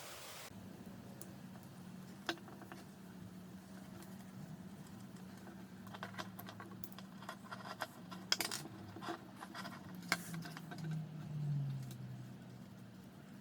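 Scattered clicks and light taps of small hard objects being handled, coming in a busier cluster in the second half, over a faint steady hum.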